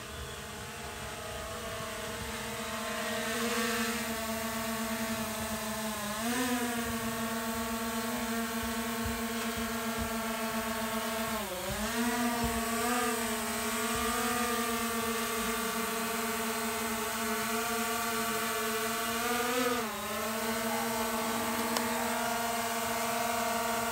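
DJI Mavic Air 2 quadcopter's propellers humming as it flies in close, growing louder over the first few seconds, with the pitch dipping and swelling briefly several times as the drone changes speed.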